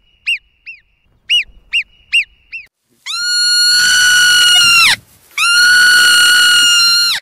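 Alpine marmot alarm whistling: a quick run of short, sharp chirps, then two long, loud, shrill whistles held on one pitch, each about two seconds long and dropping at the very end.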